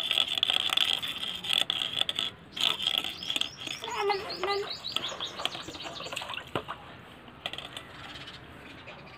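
A toddler being washed in a plastic tub: water sloshing as hands rub his back, a short child's vocalization about four seconds in, and a bird's rapid, slightly falling trill around the same time.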